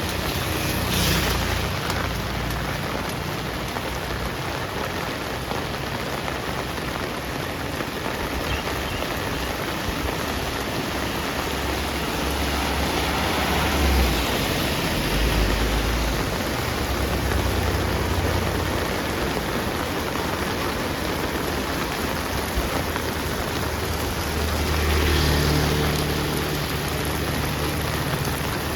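Heavy rain falling steadily on a street, with vehicles passing on the wet road: low engine rumbles swell up a few times, most strongly in the middle and near the end.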